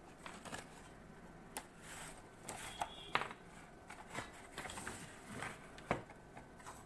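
Packaging being opened by hand: irregular clicks, knocks and rustles, with a sharp knock about three seconds in and another near the end.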